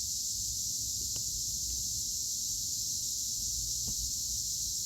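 Steady high-pitched chorus of crickets, with a couple of faint clicks.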